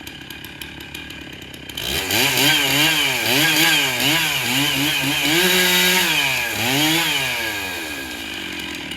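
Two-stroke chainsaw idling, then opened up about two seconds in. Its engine pitch repeatedly sags and recovers, as when the chain is cutting into wood under load, and briefly holds at full speed before winding back down to idle near the end.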